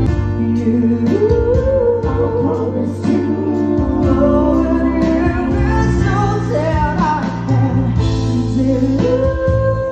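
Live band music: a male singer singing a melody into a handheld microphone over electric keyboard chords and bass, amplified through the band's speakers.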